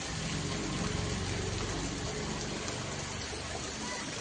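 Rushing water running steadily, with a low hum underneath.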